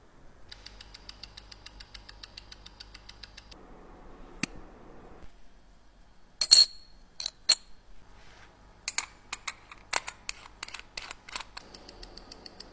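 A mechanical watch movement ticking quickly, about seven ticks a second, for about three seconds. Then sharp, ringing metal clicks and clinks of small steel watch parts as a case back is fitted and the watch case is closed, ending in a string of irregular clicks.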